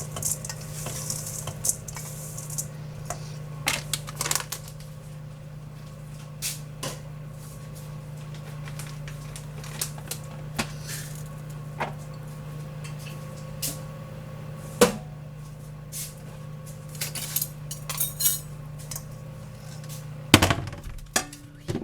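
Spoon clinking and scraping against a mixing bowl as the granola mix of oats, nuts and dried fruit is stirred: scattered short knocks, a louder one near the end, over a steady low hum.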